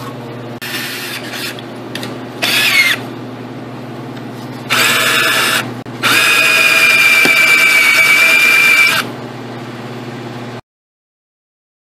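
Cordless drill with a small bit drilling into a broken steel bolt. It runs in a few short bursts, then steadily for about three seconds with a high, steady squeal, and stops about nine seconds in.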